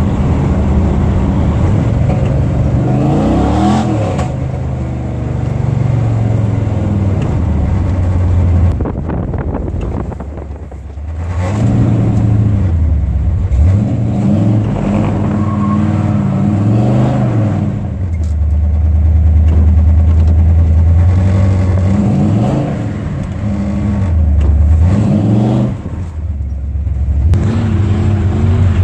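Car engine revving up and dropping back again and again, its pitch rising and falling every few seconds.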